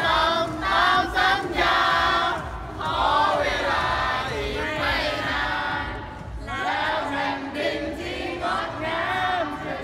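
A cheer squad of men and women singing a cheer song together as a choir.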